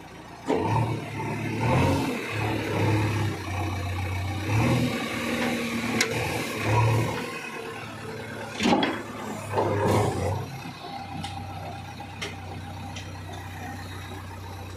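Diesel engine of a JCB backhoe loader working, revving up and down under load, with a few sharp clanks in the middle; it settles to a steadier, quieter run for the last few seconds.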